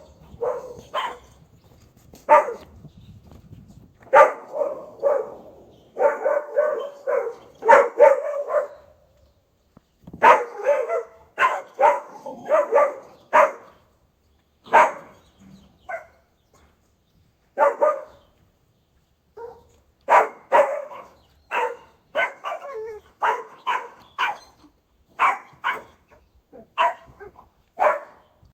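German Shepherd barking aggressively, an alert guard-dog bark. It comes in irregular runs of short, separate barks with brief pauses between the runs.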